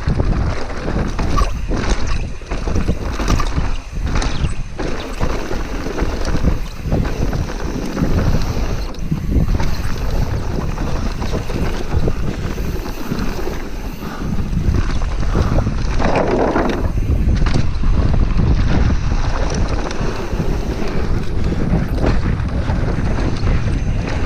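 Heavy wind buffeting on a chest-mounted camera's microphone during a fast downhill mountain-bike run. Under it, tyres rumble over dry dirt and rocks, and the bike gives frequent short knocks and rattles.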